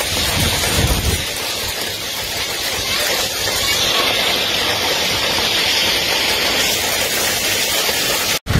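Heavy rain pouring down in a storm, a steady dense hiss, with a low rumble of wind buffeting in the first second. It cuts off abruptly just before the end.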